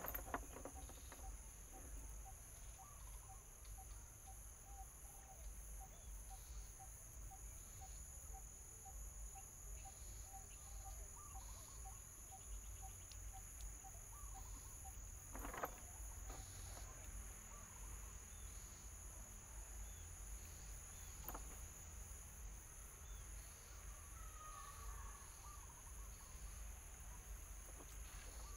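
Steady, high-pitched drone of insects at the river's edge. In the first half a faint call repeats about two or three times a second, and a couple of sharp knocks stand out around the middle and later on.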